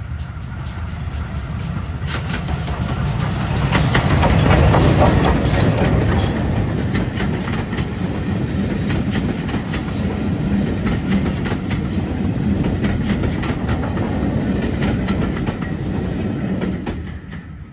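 GWR Modified Hall class 4-6-0 steam locomotive approaching and passing close by, loudest about four to six seconds in. Its coaches follow with a steady clickety-clack of wheels over the rail joints, which drops away suddenly as the last coach passes near the end.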